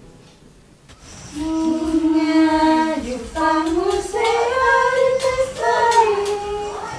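A single high voice singing a slow melody in long held notes that slide from one pitch to the next, starting about a second in.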